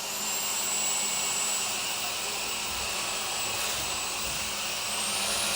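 Homeika cordless stick vacuum running: a steady motor hiss with a high-pitched whine, which rises in pitch about five seconds in.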